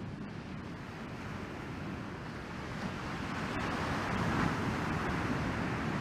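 Ocean surf breaking and washing ashore with wind rumbling on the microphone; the surf noise swells and grows louder about halfway through.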